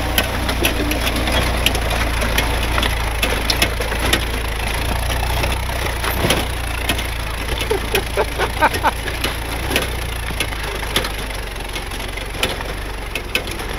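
A vehicle engine running steadily at low revs, under many irregular sharp knocks and clicks from a vehicle working slowly over rough ground.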